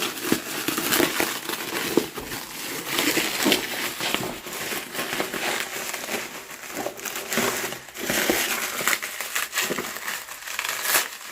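Parcel packaging crinkled, crushed and torn by hand while being unwrapped: a steady run of irregular crackles and crunches.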